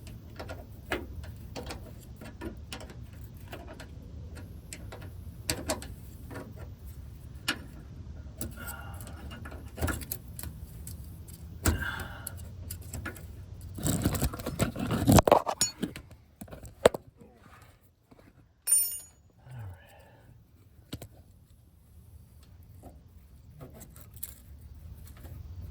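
Metal hand tools clinking, ticking and scraping against the truck's brake line fitting as a wrench is worked on it, with a louder burst of scraping and rattling about two-thirds of the way through.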